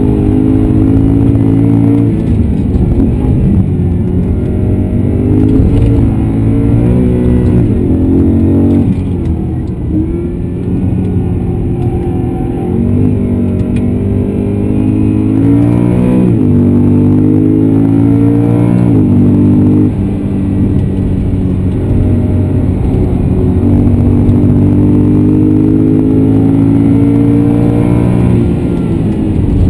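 BMW E92 M3's 4.0-litre V8 heard from inside the cabin at racing pace: it comes off the throttle and the revs fall for a few seconds, then it accelerates hard through the gears, its pitch climbing and dropping sharply at each upshift, and holds high revs before lifting off near the end.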